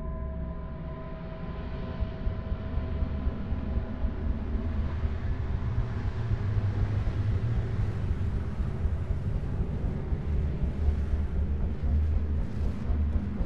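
Dirt-track race car engines rumbling low, the sound building and growing louder, with a fast uneven pulsing.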